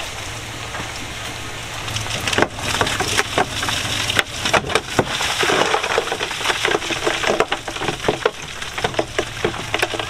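Stones crunching and cracking under heavy earthmoving machinery, over a steady diesel engine hum. A dense, irregular run of sharp cracks and knocks starts about two seconds in.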